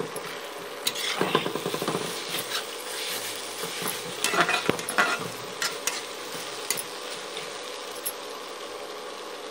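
A spatula stirring and scraping jackfruit curry around a metal kadai over a steady sizzle of frying masala. The scrapes and clinks come in bunches, about a second in and again around four to six seconds, then only the sizzle carries on.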